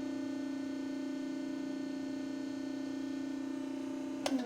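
Hydraulic press's pump motor running with a steady loud hum. A little over four seconds in there is a click and the motor is switched off, its pitch falling as it winds down.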